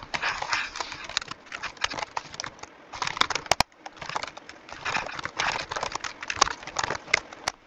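Computer keyboard typing played back sped up about four times, so the key clicks come in a rapid, dense clatter with a short break about halfway through.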